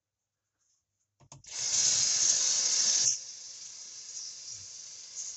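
Kitchen tap turned on with a click about a second and a half in, water running hard into the sink, then running more quietly from about three seconds in, as raw chicken thighs are rinsed under it.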